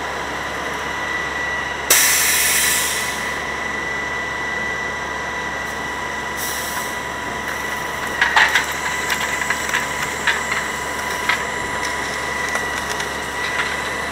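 Grapple truck running with a steady mechanical whine. A sharp hiss bursts out about two seconds in and fades over a second, with a shorter hiss around six seconds. From about eight seconds on come irregular cracks and snaps of dry palm fronds and wood debris in the load.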